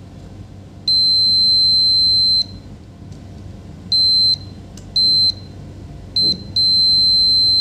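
Digital multimeter's continuity beeper sounding a steady high beep as the probes touch board points: one long beep, three short ones, then another long one. The beep signals continuity, here the short circuit to ground being traced on the laptop motherboard.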